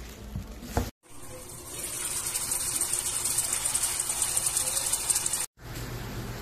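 Corned beef, diced potatoes and broth sizzling and bubbling in a Dreepor electric cooker's non-stick pot: a steady hiss that starts about a second in and cuts off abruptly near the end. After the cut comes a quieter steady hum with bubbling under the cooker's glass lid.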